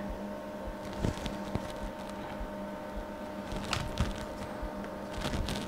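Desktop PC case fans (Cooler Master and stock Corsair 120 mm fans) running with the side panel off: a steady whir with several steady tones through it, loud enough to read in the low 50s dB on a phone meter inside the case. A few light clicks and knocks about a second in, near the middle and near the end.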